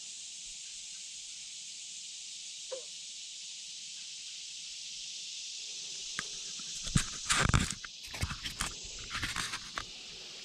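Footsteps and scraping in thick creek-bank mud, a run of loud scuffs and steps starting about seven seconds in, over a steady background hiss.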